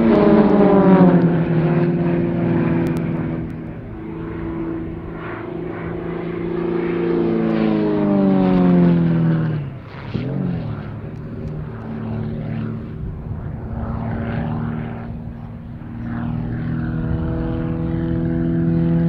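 Extra 300L aerobatic planes' six-cylinder piston engines and propellers droning overhead. The pitch falls as a plane passes just after the start, and again about eight to ten seconds in. Near the end the pitch rises as power comes on.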